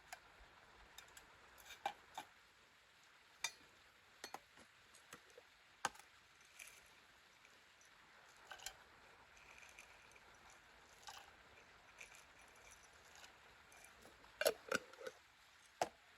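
Sparse, irregular light clicks and taps over a faint steady hiss, with a quick cluster of louder knocks near the end.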